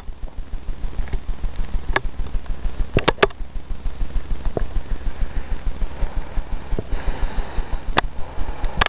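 Handling noise from a handheld camera being moved about: a handful of sharp clicks and knocks over a steady low, fast throb, with a light hiss in the second half.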